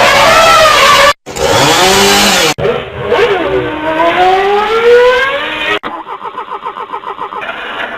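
A string of short sound-effect clips joined by abrupt cuts: pitched sounds that slide up and down, a long rise in pitch, then a rapid, even pulsing near the end.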